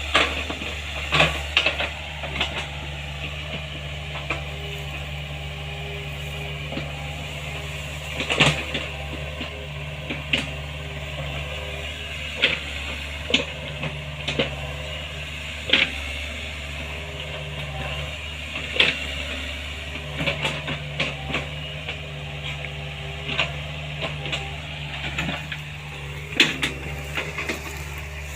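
Small Hitachi excavator's diesel engine running steadily, with sharp cracks and knocks every second or two as wood and brush are broken during digging.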